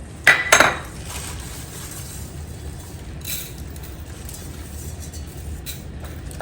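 Kitchen utensils clinking against a cooking pot: two sharp clinks about a third of a second apart near the start, then two fainter clinks later, over a low steady hum.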